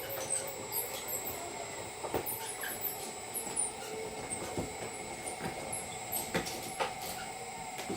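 Small wheels of a loaded MagnaCart foldable hand truck rolling and rattling, with irregular clacks and knocks.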